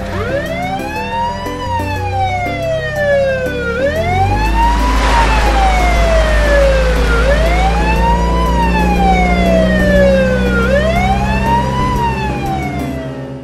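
Police siren wailing, its pitch rising quickly and falling slowly in about four cycles of some three and a half seconds each. A low rumble runs underneath, with a brief rushing hiss about five seconds in.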